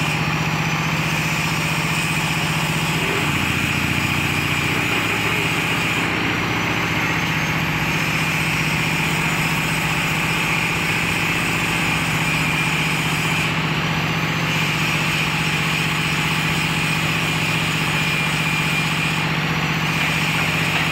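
Concrete-pour lift winch machine's motor running steadily with a constant hum, its note briefly shifting about three seconds in.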